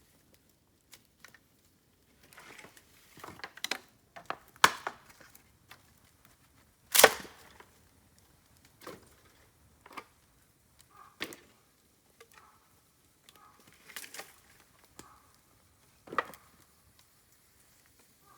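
Dry bamboo giving sharp, scattered cracks and snaps at irregular intervals, with quiet between them. The loudest crack comes about seven seconds in.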